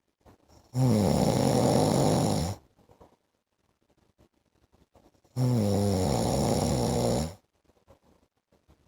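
A man snoring in his sleep: two long, low snores, each about two seconds, the second coming about five seconds after the first, with faint breathing between them.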